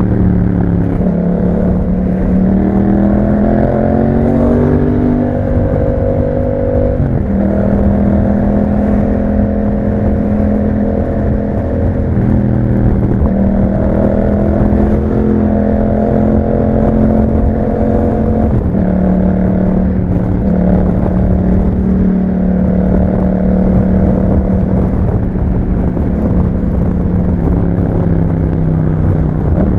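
Yamaha MT-07's 689 cc parallel-twin engine running through an Akrapovic exhaust while riding. The revs climb, then fall sharply at about 7 and 18 seconds in and again near the end, as the bike shifts gear or rolls off the throttle.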